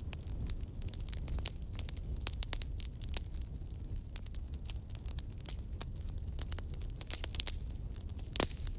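Irregular crackling clicks and pops over a steady low rumble, with one louder pop near the end.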